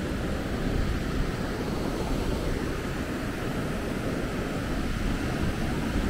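Ocean surf and wind on the microphone: a steady rush of noise, heaviest in the low end, with a constantly fluttering low rumble.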